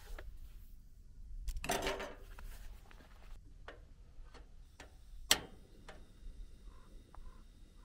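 A soft rustle as a fabric pouch is handled and set down, then a single sharp click about five seconds in as the portable butane stove's piezo igniter is turned. A faint steady hiss of gas runs from just before the click onward.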